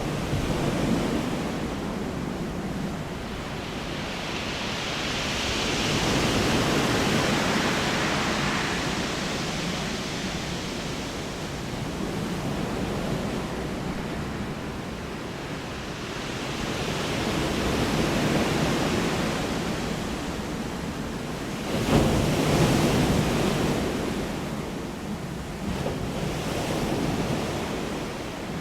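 Ocean waves washing onto a shore: a steady rush that swells and ebbs every several seconds, with a sharper break about 22 seconds in.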